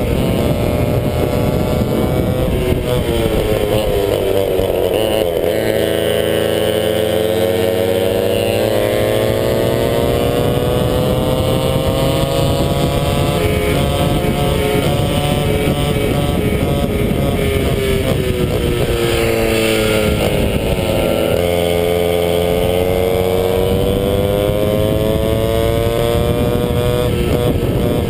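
A 100cc McCulloch MC8 two-stroke kart engine running at racing speed. Its pitch drops twice as the kart slows for corners, about four seconds in and again about twenty seconds in, and it climbs back each time as the kart accelerates.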